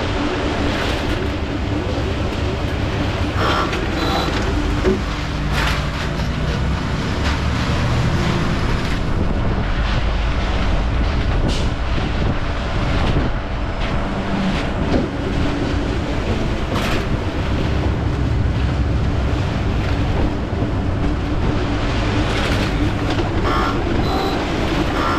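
A concrete mixer's engine running steadily, with a few sharp knocks and clanks scattered through it.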